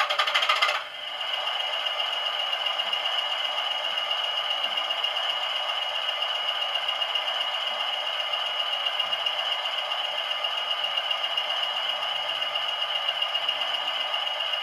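DCC sound decoder in a Bachmann OO gauge Class 20 model locomotive playing its diesel engine sound through the small onboard speaker, imitating the Class 20's English Electric diesel. It comes on suddenly, is louder for the first second, then settles into a steady idle with a thin high tone over it and no bass.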